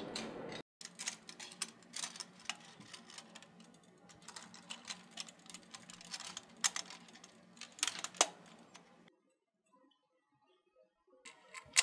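Light, irregular metallic clicks and rattles of an antenna mounting clamp, its bolts and wing nuts being handled and fitted against the metal antenna frame, stopping about nine seconds in.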